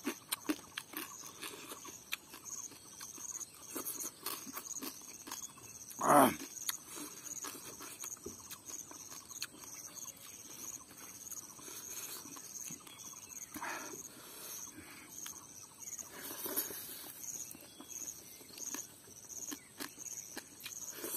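Eating sounds of crab curry and rice: chewing, lip smacking and small crunches of crab shell, with a louder short sound about six seconds in. A steady, evenly pulsing high insect chirring runs behind.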